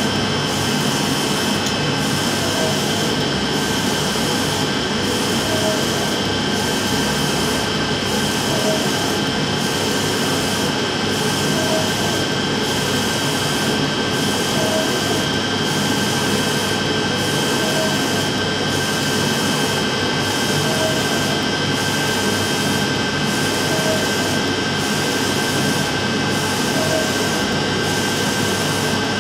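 UV flatbed printer running while its print-head carriage sweeps back and forth over leather: a steady mechanical hum and whine with several high steady tones, and a short chirp about every three seconds.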